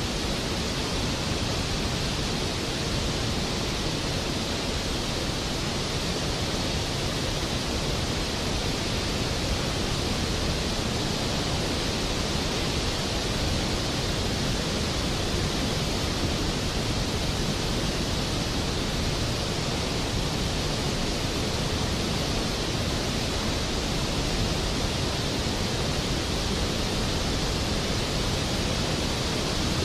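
Steady rushing hiss of river water over rapids, even and unbroken.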